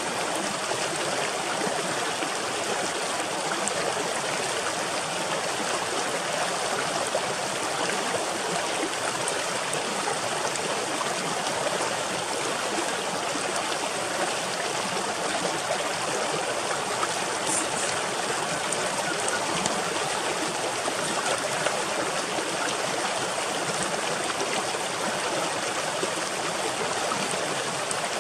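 A stream of running water rushing steadily, with no change in level.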